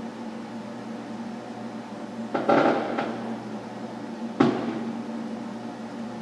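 Two knocks on a wooden desktop over a steady low hum: the first about two and a half seconds in, trailing into a short rustle, the second a sharper single knock about four and a half seconds in.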